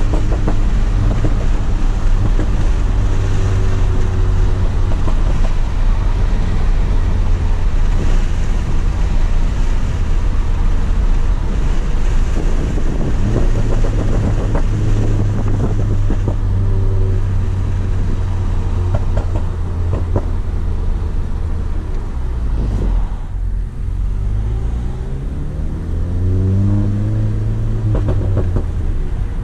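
Tuned MK7 VW Golf GTI's turbocharged 2.0-litre four-cylinder, with an APR Stage 2 tune and CTS downpipe, heard from inside the cabin while driving. A steady exhaust drone runs with scattered pops and crackles. About two-thirds of the way through the engine note drops away, then climbs steadily in pitch as the car accelerates through a gear.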